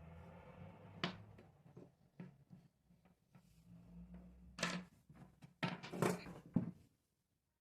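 A series of handling knocks and clicks, the loudest cluster a few seconds in, over a low rumble at the start; the sound cuts out completely near the end.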